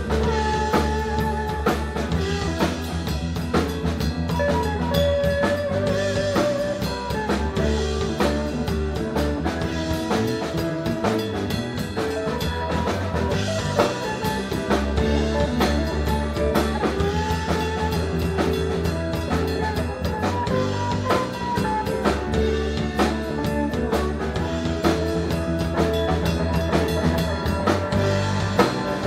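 Live blues band playing an instrumental passage: electric guitar, drum kit, bass guitar and electric keyboard, with some held, wavering notes over a steady drum beat.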